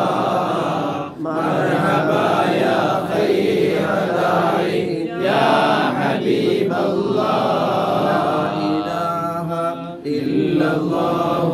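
Men chanting an unaccompanied Arabic mawlid hymn in praise of the Prophet, a lead voice with others singing along, the notes drawn out long.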